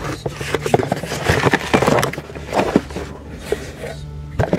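Channel-lock pliers clicking and scraping against a brake caliper piston as it is twisted back into the caliper, many short metallic clicks and knocks over a steady low hum.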